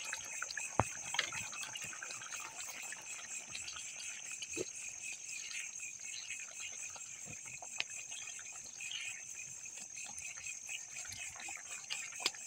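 Pan of beef stew simmering over a wood fire, with scattered crackles and clicks, set against a steady high-pitched chirring.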